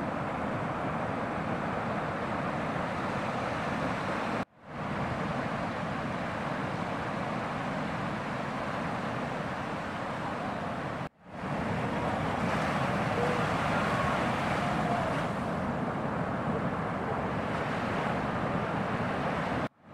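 Steady wash of breaking surf with wind buffeting the microphone. The sound cuts out sharply three times, where the footage is edited, and fades back in each time.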